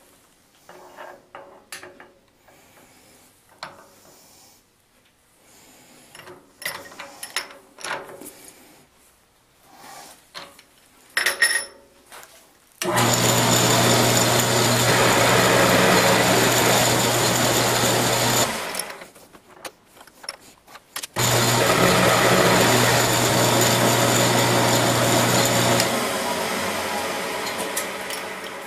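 Small milling machine's spindle motor running with an end mill milling flats on round stock to make quarter-inch hex, steady and loud in two runs of about five seconds with a short stop between, the second run coasting down near the end. Before the machine starts, a scatter of small clicks and knocks as the work in the collet block is handled.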